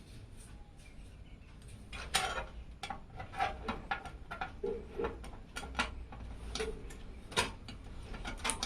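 Irregular light clicks and taps, about a dozen spread over several seconds, of PC case parts and components being handled during assembly.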